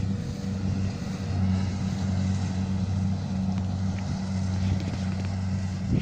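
Kubota rice combine harvester's diesel engine running steadily, a low even hum.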